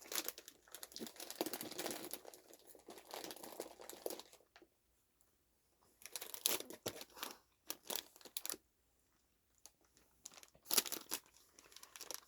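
Plastic snack wrappers crinkling and rustling as they are handled and torn open. The sound comes in bursts with short pauses between them.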